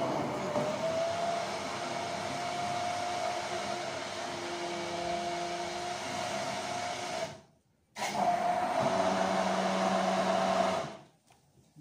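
Electric immersion (stick) hand blender running in a tall beaker, puréeing cooked blackberries. It runs steadily with a motor whine for about seven seconds, cuts out briefly, then runs again for about three more seconds.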